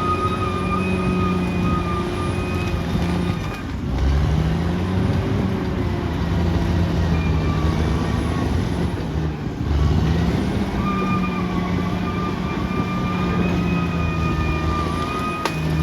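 Caterpillar D6R XL bulldozer's diesel engine working under load, with a steady high whine over it. The engine note sags and picks back up twice, about four seconds in and again near ten seconds.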